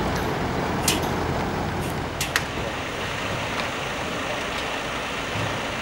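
Diesel engine of a tractor-trailer running as the lorry moves slowly, a steady low rumble that eases slightly after the first second or so. Three short sharp hissing clicks stand out, one about a second in and two close together near the middle.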